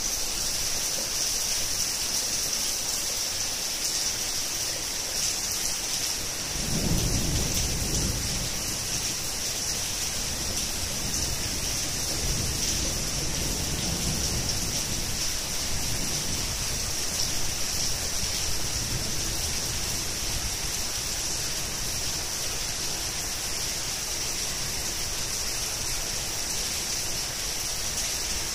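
Steady heavy rain with rolls of thunder: a low rumble swells about seven seconds in, and fainter rumbles follow a few seconds later.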